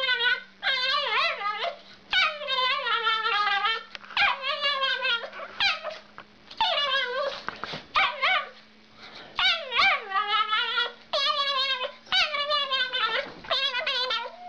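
A small dog howling and whining in a long series of wavering, high-pitched cries, each about a second long and often coming in pairs with short breaks between them. A faint steady hum lies underneath.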